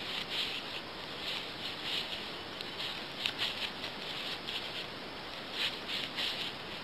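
Knitting needles working knit stitches through yarn: soft, irregular scratchy ticks, a few per second, as the needle tips rub and catch on each other and the yarn.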